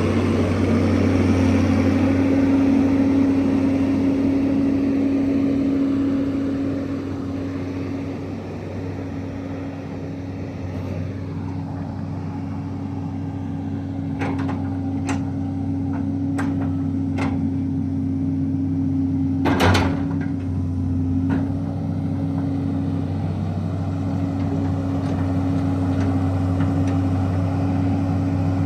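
Diesel engine of a Hitachi UH083 LC hydraulic excavator running steadily. Its level eases off after about six seconds and then builds again. Several sharp knocks come in the second half, the loudest about two-thirds of the way through.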